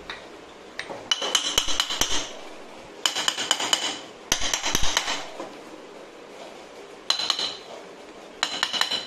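Metal hand tools working on a Pulsar 150 cylinder head as it is seated. There are five bursts of rapid metallic clicking with a ringing tone, each lasting a second or less.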